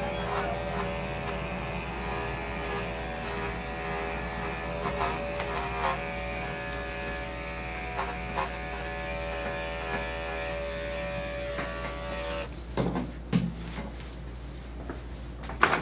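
Electric dog grooming clippers running with a steady buzz while cutting through the dog's coat, the pitch dipping slightly now and then as the blade takes hair. They switch off suddenly near the end, followed by a few sharp knocks.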